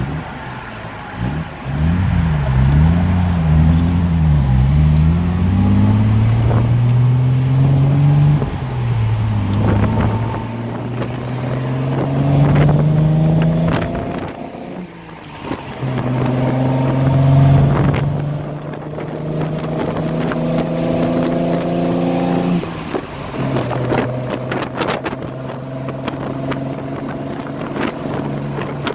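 Lancia Aurelia B24S's 2.5-litre V6 pulling the car through the gears. The engine note wavers at first, then climbs in each gear and drops sharply at each of three upshifts. Wind rushes through the open cabin, with a few sharp knocks.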